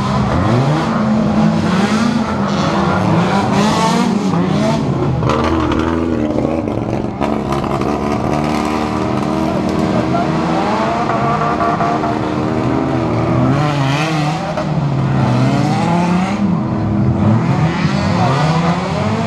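Several race car engines revving hard on a dirt circuit, their pitch repeatedly rising and falling as they accelerate, change gear and back off, overlapping one another.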